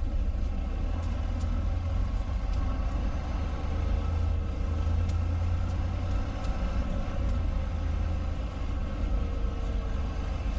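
Semi truck's diesel engine running at low speed, a steady deep rumble, while the rig is maneuvered back and forth into position.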